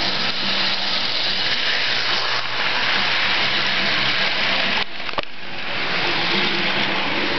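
Model trains running on the layout: a steady whir of electric motors and wheels rolling on the track, with a low hum. About five seconds in the noise dips briefly with a couple of clicks.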